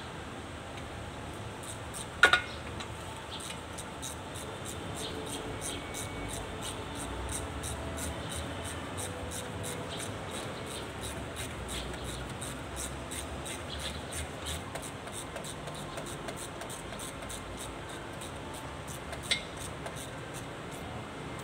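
Hand tools and bolts being worked on a Kubota tractor's rear axle housing: faint ticking and handling noise over a steady background, with a sharp metallic clink about two seconds in and a smaller one near the end.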